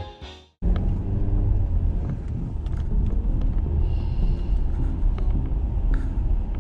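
A guitar music track fades out at the start, and after a brief gap the steady low rumble of a car driving is heard from inside the cabin.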